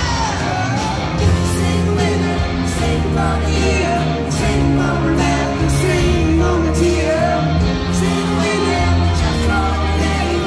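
Live rock band playing through a concert PA: a lead voice singing over piano, bass and drums.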